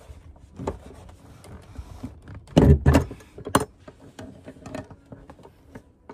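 Knocks and clunks of a heavy car seat, freshly unbolted, being lifted out of the car and handled, with one heavy thump about two and a half seconds in and a sharp knock about a second later.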